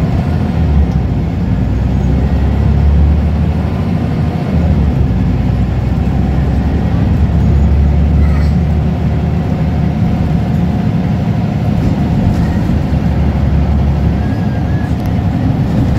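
Scania L94UB single-deck bus under way, heard from inside the passenger saloon: a steady low drone of its diesel engine mixed with road and tyre noise, swelling and easing slightly as it drives.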